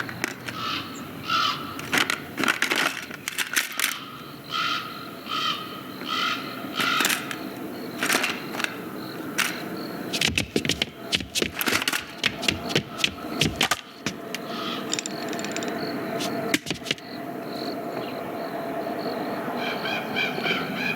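Animated-film sound effects: a busy run of sharp knocks, clicks and clatters, with short pitched tones in the first several seconds and a steadier hum in the last part.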